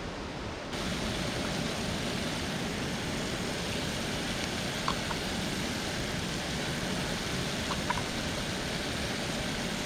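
Steady rushing noise that gets louder abruptly just under a second in, with two short, faint high chirps about five and eight seconds in.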